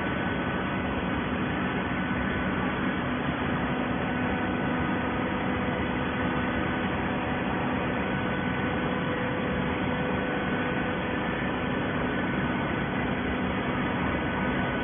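Hydraulic scrap carton baler running: a steady mechanical hum with a few fixed tones and no strokes or bangs.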